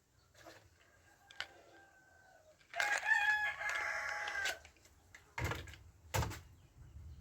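A rooster crowing once, a loud call of about two seconds, preceded by a fainter short call. Two short knocks follow near the end.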